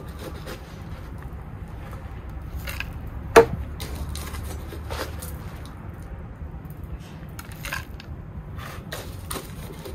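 Gritty bonsai soil mix rustling and crunching as it is scooped from a bag with a plastic scoop, in scattered short clicks, with one sharp knock about three and a half seconds in.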